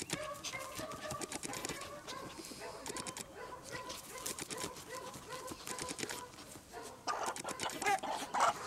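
A dog snuffling and digging with its nose and paws in grass and soil: a quick run of short scratchy sounds. Birds call around it.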